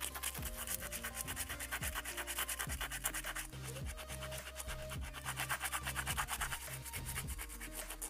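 Rapid scraping strokes of a hand tool scouring rust off a steel folding-knife part, a dry, fast rasping, over background music.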